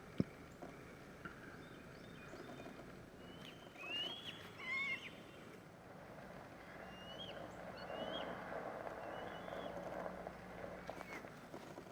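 Eagles calling: several short, high calls that rise and fall in pitch, the loudest group about four to five seconds in and more around seven to eight seconds, over a steady outdoor background hiss. A single sharp click sounds right at the start.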